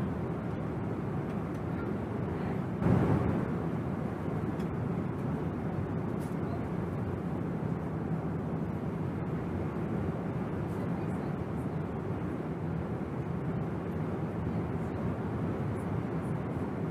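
Steady cabin noise of an airliner in flight, the even rush of engines and airflow, with a brief swell about three seconds in.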